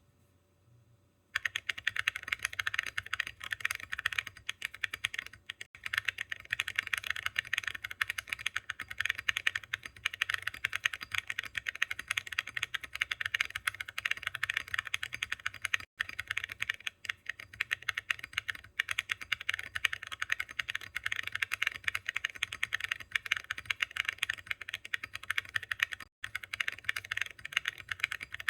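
Fast, continuous typing on a mechanical keyboard fitted with full-metal Awekeys Viking Antiques keycaps. It starts about a second in and breaks off briefly twice, once about halfway through and once near the end.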